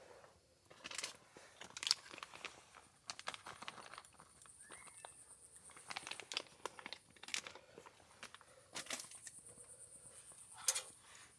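Irregular rustling, crinkling and sharp clicks of gear being handled, with one louder click near the end.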